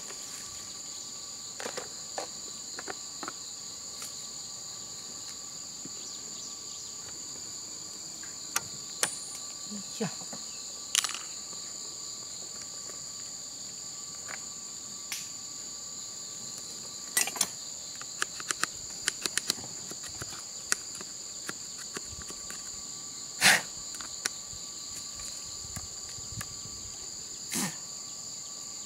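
Steady, high-pitched insect chorus, with scattered clicks and light knocks from a gasoline chainsaw's plastic cover and air filter being handled and taken off.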